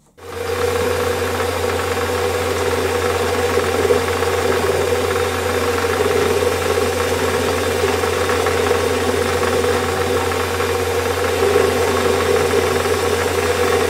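Warco metal lathe running with its chuck spinning, giving a steady mechanical hum and whine. It comes up within the first half-second and then holds even.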